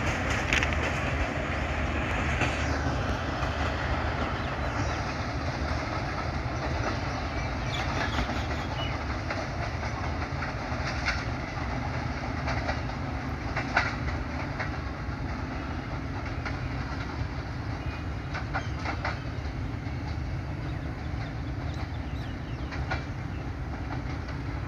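Train running along the track: a steady rumble with scattered clicks of wheels over rail joints.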